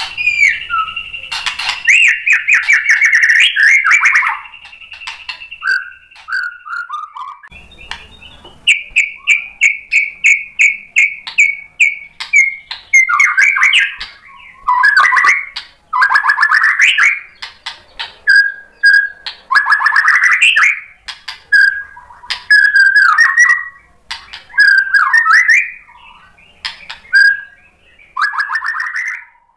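White-rumped shama singing a long, varied song of clear whistles and trills, with quick runs of repeated notes, in loud phrases separated by short pauses.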